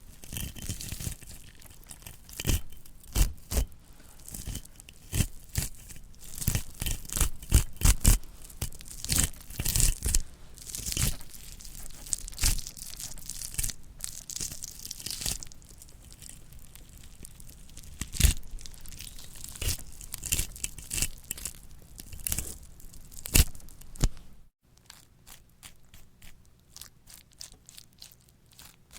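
Gore sound effects for mutilation and dissection: irregular tearing and crunching, like flesh ripping and bone breaking, with sharp cracks through it. Near the end it cuts off suddenly and gives way to a quieter run of small, rapid clicks.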